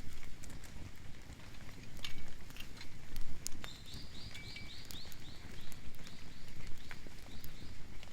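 Campfire crackling with scattered sharp pops over a steady low rumble of rain. About halfway through, a run of about a dozen quick high chirps from a small animal starts and fades out near the end.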